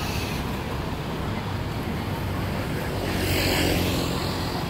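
Street traffic: a steady low rumble of road noise, with a vehicle engine passing close and loudest about three to four seconds in.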